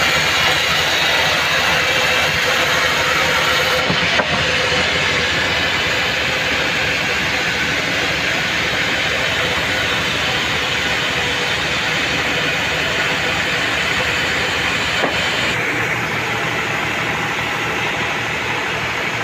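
Band sawmill running: a steady, loud machine hiss and hum. A brief knock comes about four seconds in, and the sound changes abruptly there and again near the end.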